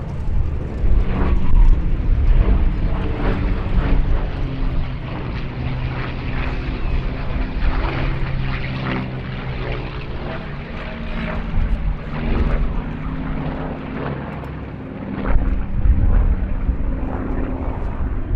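Piston engines and propellers of World War II warbirds in flight, a continuous drone holding several steady pitches.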